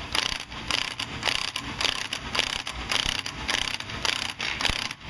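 Pneumatic air ratchet run in short repeated bursts, about three a second, driving the centre screw of a three-jaw puller to draw a wheel hub off its shaft.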